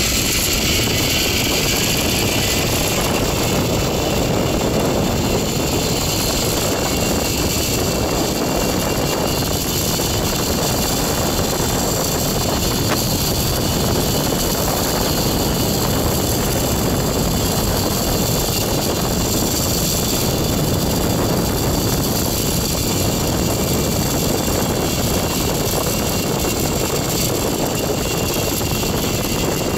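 Zipline trolley pulleys whirring along the steel cable during a fast ride, mixed with a steady rush of wind over the microphone. The sound holds loud and even throughout, with a faint high whine on top.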